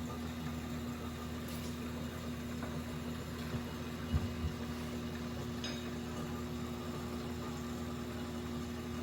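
Steady mechanical hum of shop machinery, with a couple of light knocks about four seconds in.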